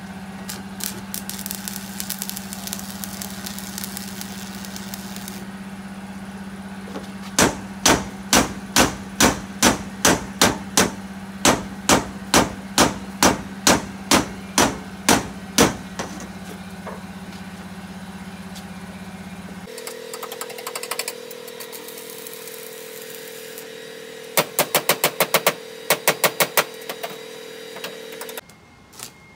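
A club hammer striking the steel floor plate of a truck bed that is being tack-welded down, about two blows a second for some eight seconds. Later comes a shorter, quicker run of blows. A steady machine hum runs underneath.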